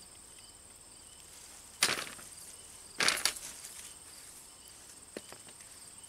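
Hands digging through loose soil and dry hay mulch, with two loud crunching rustles about two and three seconds in and a small click near the end. Insects keep up a steady high trill.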